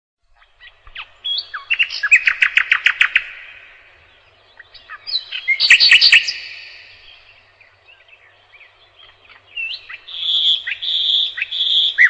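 Nightingale singing: three phrases of whistles and fast repeated notes, with short pauses between them. The first two phrases hold a quick run of repeated notes, and the third ends on a few clear held whistles.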